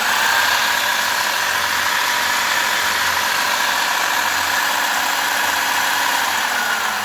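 Faulhaber 3557K006C DC motor driving a Wedico CAT 740 model dump truck's gearbox in third gear: a steady, loud whine of motor and gears that drops slightly in pitch near the end. The owner puts most of the noise down to the planetary gears at the back and front.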